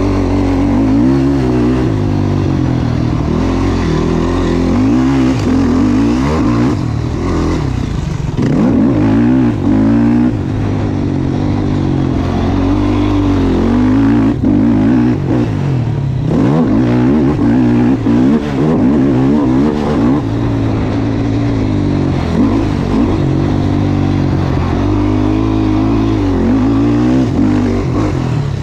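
Yamaha YFZ450 ATV's single-cylinder four-stroke engine being ridden hard, revving up and down over and over as the throttle opens and closes, with short drops in pitch where the throttle is chopped.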